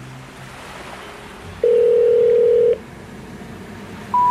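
Telephone call tones: a steady ringback beep about a second long, with a low hiss between the tones. Just at the end a higher beep starts, the first of a rising series of tones.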